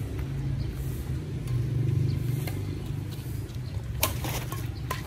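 Steady low rumble of motor traffic, with sharp racket strikes on a badminton shuttlecock during a rally. The loudest crack comes about four seconds in, and another follows just before the end.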